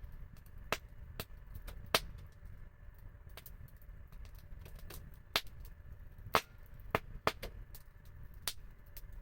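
Wood fire crackling: irregular sharp pops and snaps, about half a dozen of them loud, over a low steady rumble.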